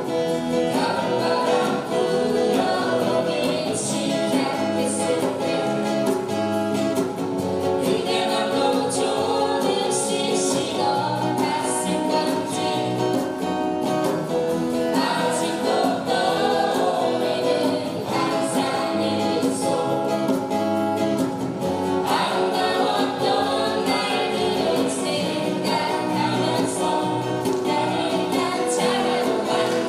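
Live band playing a song, with voices singing together over acoustic guitars, electric bass and djembe.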